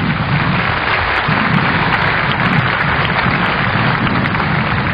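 Large open-air crowd applauding, a dense, even clapping that swells in at the start, with crowd noise beneath it.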